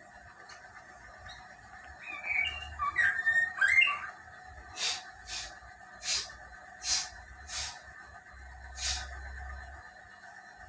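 Lesser racket-tailed drongo calling: a quick run of whistled, gliding notes and chirps about two seconds in, then six short harsh calls spaced roughly a second apart.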